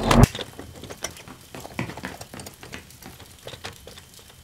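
A heavy thump, then a run of irregular clicks and rattles that slowly fade away.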